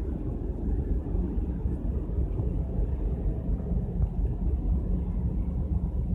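Low, fluttering rumble of wind on the microphone on a cruise ship's open top deck, over a steady hum from the ship's engines and machinery as it gets under way.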